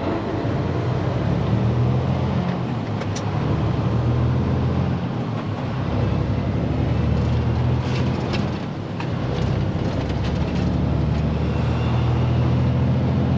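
Diesel engine of a day-cab truck running steadily while driving, heard from inside the cab. Its drone eases briefly twice, about five and nine seconds in, with a few light rattling clicks.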